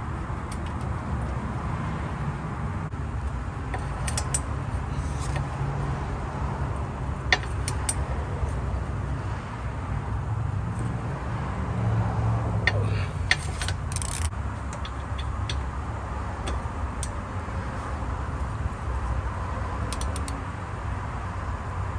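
Scattered metallic clicks and clinks of a ratcheting wrench and bolts on a brake caliper bracket as the bracket bolts are threaded in and tightened, over a steady low background hum.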